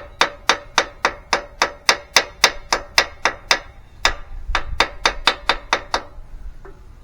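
Hammer tapping steadily on a punch, about twenty sharp metallic strikes at three or four a second with a short pause near the middle, stopping about a second before the end. It is peening the soft aluminium of a Craftsman mower engine block around a loose valve seat to stake the seat in place.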